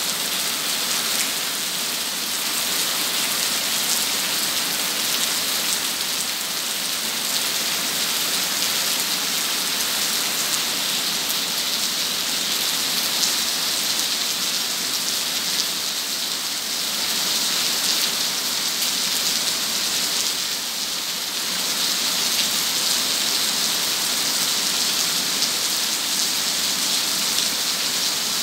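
Heavy rain pouring down steadily onto the ground and paving, a dense, even hiss.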